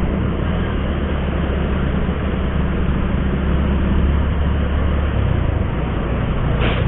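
Motorcycle engine running steadily under wind and road noise while riding, with a brief higher-pitched sound near the end.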